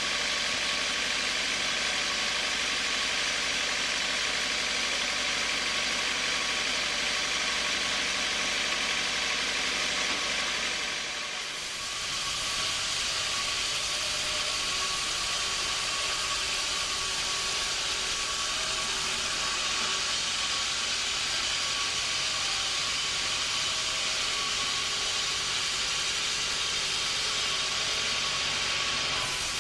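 Sawmill machinery running steadily: a continuous mechanical hum with a strong hissing top. It drops briefly about eleven seconds in, then carries on.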